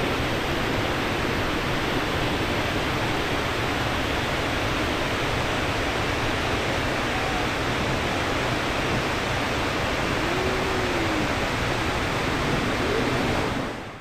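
The chute de la rivière aux Émeraudes, a waterfall spilling over rock ledges into a pool, makes a steady rushing of falling water. The sound fades out near the end.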